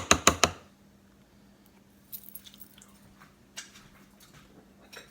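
A metal utensil clinking against a dish: a quick run of about six sharp clinks at the start, then a few faint light clicks and scrapes.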